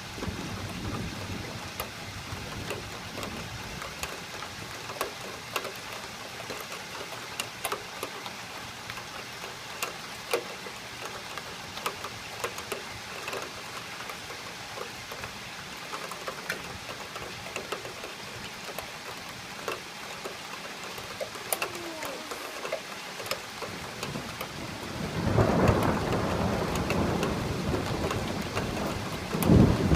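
Steady rain with scattered ticks of drops hitting nearby surfaces. About 25 s in a roll of thunder builds and rumbles on, with a loud clap near the end.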